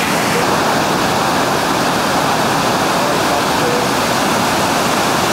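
Loud, steady roar of whitewater rapids.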